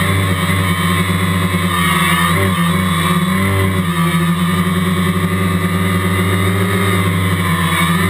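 Quadcopter's electric motors and propellers buzzing steadily, heard close from the camera mounted on the craft in flight. The pitch wavers briefly a few seconds in as the motor speeds change.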